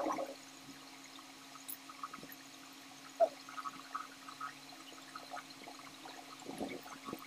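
Close mouth sounds of eating lansones, wet chewing and slurping of the juicy fruit, with small clicks and crackles from fingers peeling the thin skins and a sharp click about three seconds in. A steady low hum runs underneath.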